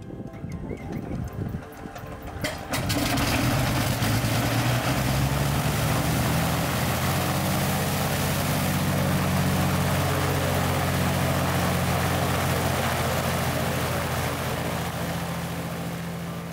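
Cessna 421C's geared, turbocharged Continental GTSIO-520 engine being started: about three seconds of uneven cranking, then the engine catches suddenly and settles into steady running, easing off slightly near the end.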